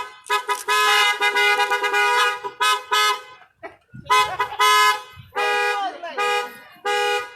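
Car horns honking in celebration: a long blast of about two seconds, then a string of shorter toots.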